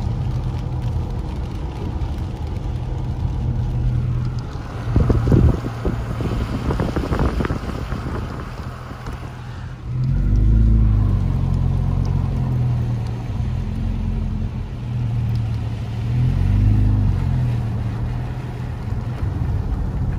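Car driving on a wet road, heard from inside: a steady engine hum and tyre noise on the wet asphalt, with a short loud burst of noise about five seconds in. The engine note rises and falls twice, about halfway through and again near the end.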